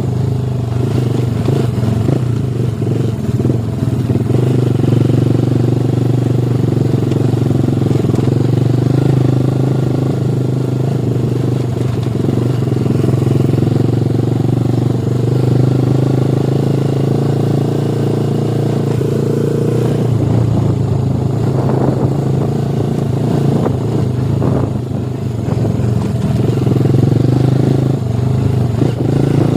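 Motorcycle engine running steadily under way, with a few light knocks or clatter after about twenty seconds.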